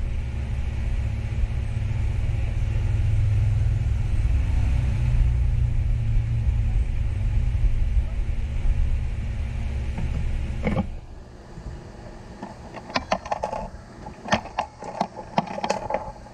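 A steady low machine rumble that cuts off suddenly about eleven seconds in, followed by a scatter of light clicks and taps as small phone parts are handled on the repair bench.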